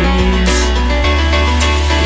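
Background pop-electronic music with a deep bass line, held synth notes and a steady beat.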